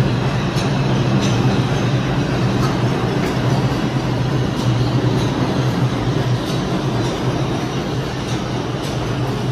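New York City Subway IRT train running through an underground station: a loud, steady rumble of steel wheels on the rails, with light clicks as the wheels cross rail joints.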